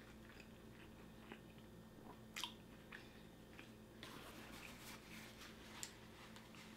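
Faint close-up mouth sounds of a person chewing a bite of deep-fried shrimp sushi roll: scattered soft clicks and smacks, a slightly louder one about two and a half seconds in and another near the end.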